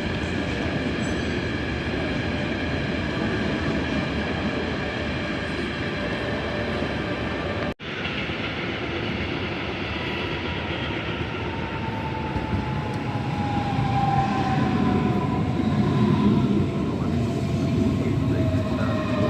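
Trains running through a station with a steady rumble and whine. The sound breaks off for an instant about eight seconds in. After that, an electric train's motor whine slides slowly down in pitch as the rumble grows louder.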